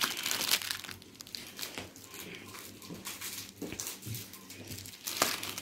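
Crinkling of wrapped toffees and chocolates being handled and set down on a small table, a string of short, irregular rustles.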